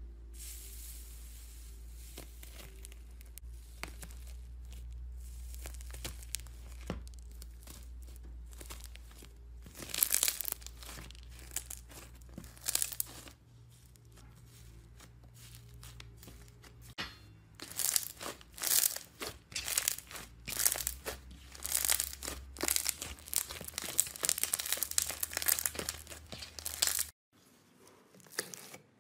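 Thick white slime studded with pink and blue beads being pressed with a fork and pulled apart by hand: sticky crackling and tearing with clusters of sharp crunchy pops, over a steady low hum. Near the end a cut brings quieter sounds.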